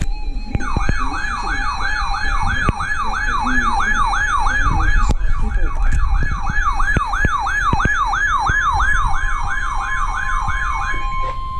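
Electronic siren-style emergency alert signal, a wail sweeping up and down in pitch a little over twice a second, heralding a severe thunderstorm warning. Near the end the wail stops and a steady single alert tone is left, in the manner of the NOAA Weather Radio warning alarm tone.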